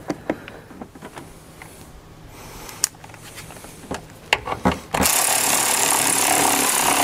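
A few light clicks and clinks of metal parts being handled, then about five seconds in a cordless power ratchet runs steadily for a couple of seconds, driving down the battery hold-down bolt.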